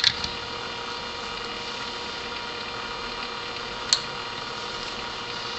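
Steady background hiss with a faint electrical hum, broken by a sharp click at the start and another about four seconds in.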